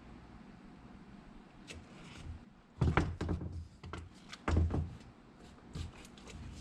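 Handling noises: a couple of dull knocks with clicks and scraping, about three seconds in and again about a second and a half later, then a few lighter clicks.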